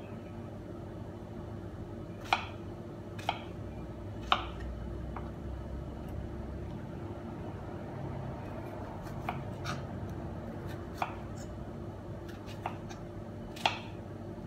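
Small kitchen knife cutting fruit by hand, its blade striking the cutting board in irregular sharp taps, about eight in all. A steady low hum runs underneath.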